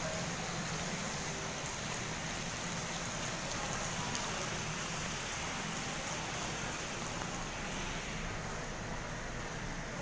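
Steady rushing noise like rain or falling water, easing slightly near the end.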